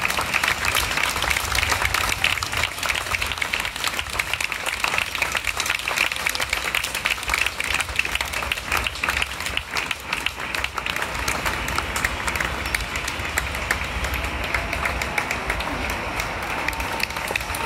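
A large crowd clapping and applauding continuously, the clapping thinning a little after about ten seconds.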